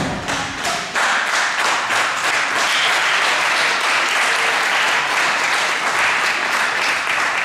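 A heavy thud at the very start, then a small crowd applauding, a dense steady clapping from about a second in.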